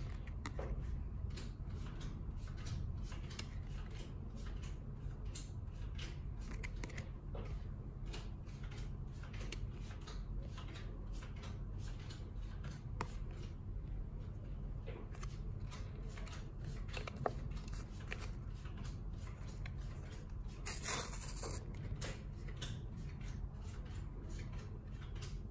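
Magic: The Gathering proxy cards being handled: light clicks and rubs of card stock between the fingers, over a steady low hum. Near the end comes a short ripping sound as a card is torn apart into its layers.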